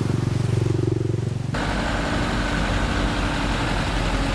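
Motorcycle engine running while riding, its note dipping and rising in the first second and a half. The sound changes abruptly about a second and a half in, then continues as a steady engine and road noise.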